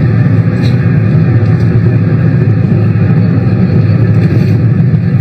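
Steady low rumble of a car in motion, heard from inside the cabin.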